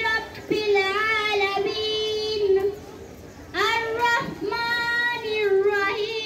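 A girl's solo voice reciting the Quran in a melodic chant, with long held, wavering notes and a short breath pause about three seconds in.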